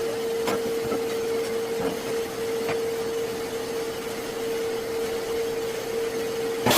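Steady hum at one pitch, with a few faint ticks in the first few seconds.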